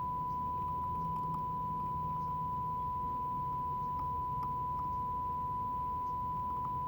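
Nordmende Caruso tube radio's speaker sounding one steady, unbroken test tone: the signal generator's modulation tone demodulated by the FM circuit under alignment. A low hum runs underneath.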